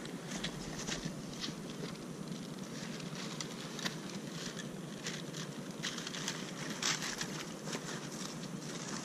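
Steady wind rushing on an action camera's microphone, with scattered crackling and rustling clicks; the loudest click comes about seven seconds in.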